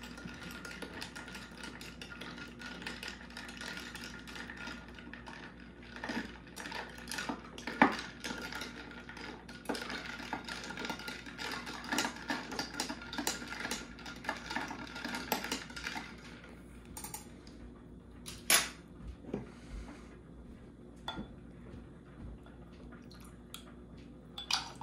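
A metal spoon stirring a cocktail over ice cubes in a glass, making a fast, steady run of clinks and rattles. The stirring chills the drink. It stops about sixteen seconds in, leaving a few scattered clinks.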